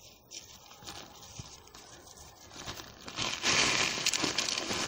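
Synthetic-fabric stuff sack of a tent's pole set rustling and crinkling as it is handled and pulled off the poles. It is faint at first, then loud and dense from about three seconds in.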